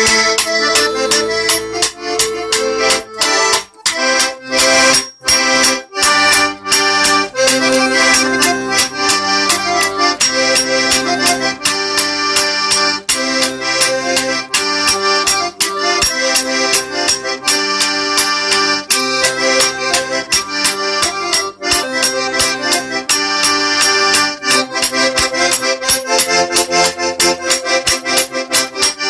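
Accordion playing a lively traditional folk tune, with sustained chords and melody, accompanied by a steady rhythmic clacking of spoons struck together.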